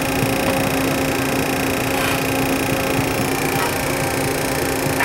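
Steady cockpit drone of a Gulfstream G-II on the ground with its Rolls-Royce Spey turbofans idling: an even rushing noise with a constant low hum and a faint high whine.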